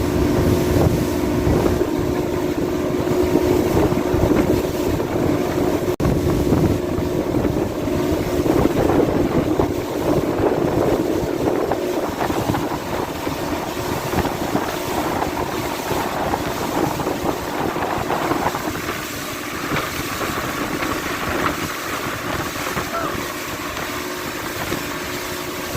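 Speedboat engine running at speed, with wind buffeting the microphone and water rushing and spraying past the hull. The noise eases a little about two-thirds of the way through.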